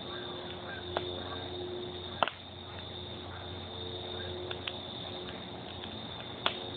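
Wood fire burning in a fire pit, crackling over a steady hiss, with a few sharp pops: about a second in, a louder one just after two seconds, two close together around four and a half seconds, and one near the end.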